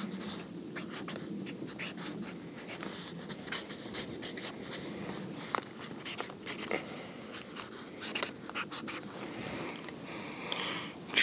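Marker pen scratching in many short strokes on a paper target as lines are drawn between buckshot holes.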